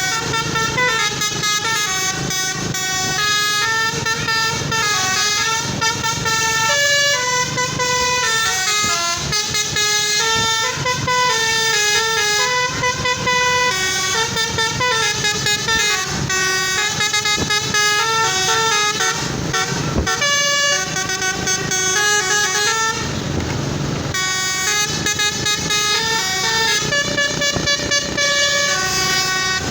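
Basuri telolet bus horn, a set of electric horns playing a melody, with rapid stepped notes one after another. There is a short rushing hiss about 23 seconds in.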